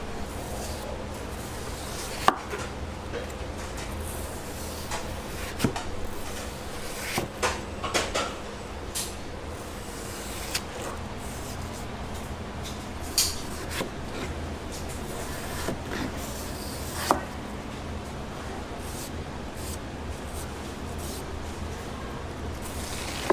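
Knife chopping fresh fruit on a cutting board: about a dozen irregular sharp knocks, with a steady low hum underneath.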